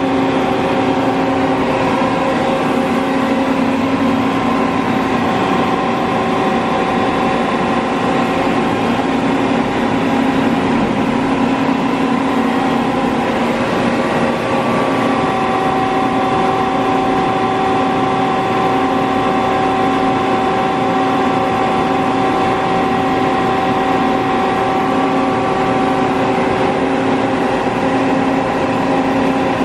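FEMCO BMC 110R2 CNC horizontal boring mill with a 4.3-inch spindle running under power: a steady mechanical hum with several held tones, which shift slightly about halfway through.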